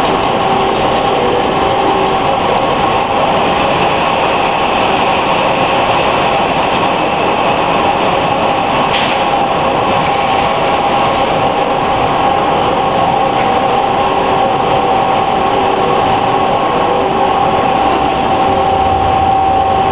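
Machinery on a bottled-water packaging line running: roller conveyors carrying shrink-wrapped packs of plastic bottles, with the end-of-line palletizing equipment. It makes a loud, continuous mechanical din with a steady high-pitched whine.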